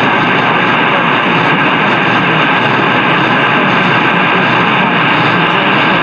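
Loud, steady hiss of AM radio static through a car stereo tuned to a weak, distant station at 820 kHz. Any broadcast audio is buried in the noise and cannot be made out.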